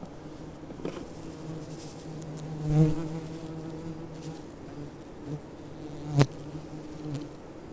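A fly buzzing around close by, its hum swelling loudest about three seconds in. A single sharp click just after six seconds.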